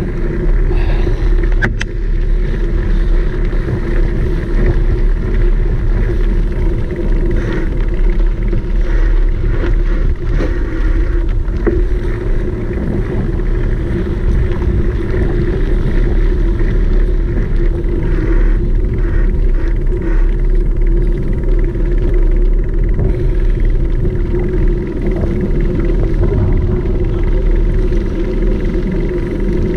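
Steady low rumble of wind buffeting the microphone as a mountain bike is ridden, with tyre and drivetrain noise and a few light clicks.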